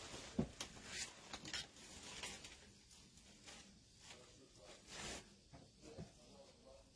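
Faint rustling and crinkling of wired ribbon and starched fabric being handled and pushed into a bow, with scattered small clicks and ticks.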